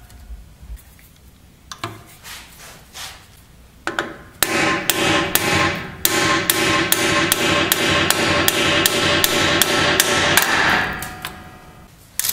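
Hammer blows on a bearing driver, driving a new axle bearing into the Ford 8.8 rear axle housing's bearing bore. After a few light knocks comes a steady run of sharp strikes, about three a second, with metallic ringing, which fades out near the end.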